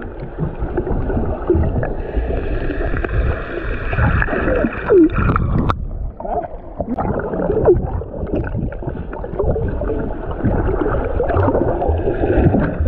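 Sea water sloshing and gurgling close to the microphone, muffled. There is a sharp click a little before six seconds in.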